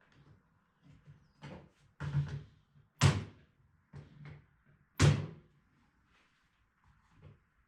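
Several irregular knocks and thuds of wood being struck or set down, the two loudest about two seconds apart.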